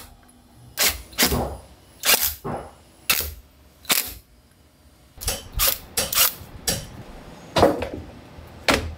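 A series of sharp, irregular clicks and knocks, about a dozen, from a wooden-cased control panel being fitted and screwed into place.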